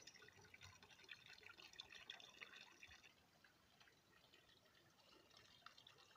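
Near silence, with only a few faint ticks in the first half.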